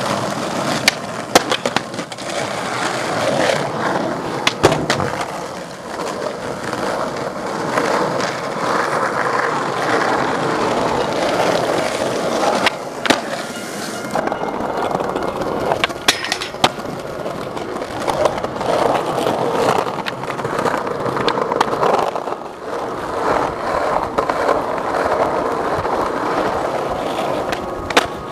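Skateboard wheels rolling on rough street asphalt with a steady roar. Several sharp board clacks, from pops and landings, occur about a second in, near five seconds, around thirteen and sixteen seconds, and near the end.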